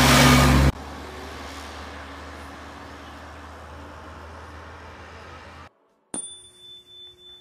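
A three-wheeled motorcycle truck drives past close by, loud for under a second before it cuts off abruptly. A quieter steady noise follows. Near the end a bright ding chime rings and fades.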